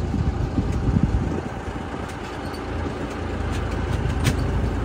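Tour vehicle's engine running as it drives, a steady low rumble that eases slightly midway.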